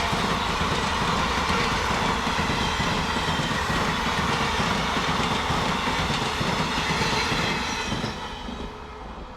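Express train of ICF passenger coaches running past at speed, the wheels clattering over the rail joints in a steady rush of rolling noise. The noise falls away sharply about eight seconds in.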